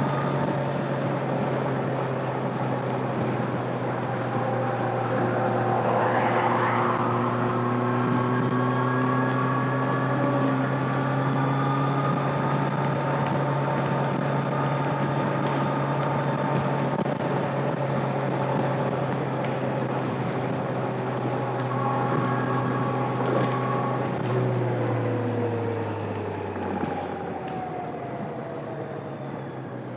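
Stock exhaust of a 2025 Kawasaki Z900's 948 cc inline-four engine, heard from onboard while riding at steady highway revs. Near the end the engine note falls and gets quieter as the revs drop off.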